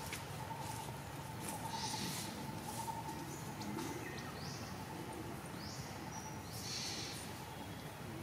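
Quiet outdoor ambience among trees with a faint steady tone and several brief, high-pitched chirps scattered through it.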